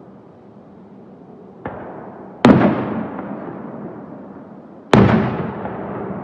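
Aerial firework shells bursting: a small pop about a second and a half in, then two loud booms about two and a half seconds apart, each trailing off in a long fading echo.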